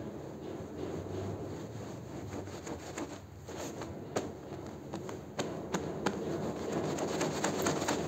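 Stiff-bristled push broom scrubbing a foam-covered wet rug on a tiled floor: a continuous wet, rough scrubbing with scattered sharp clicks and taps, more frequent in the second half.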